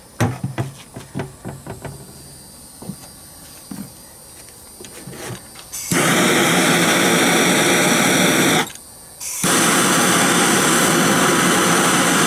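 Scattered light clicks and knocks of handling, then a gas torch's blue flame starts hissing steadily about halfway through. The flame drops out briefly and relights, heating the Briggs & Stratton carburetor body to loosen a stuck jet.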